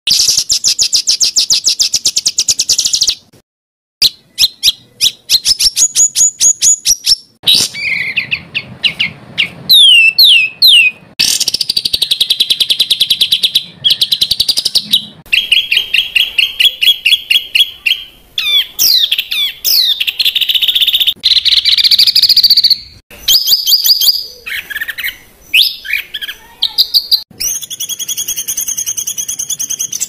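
Songbird 'masteran' recording: loud, high-pitched bird song of very fast trills and sharp whistled notes, delivered in dense bursts. The segments are spliced with abrupt cuts, with a short silent break about three seconds in.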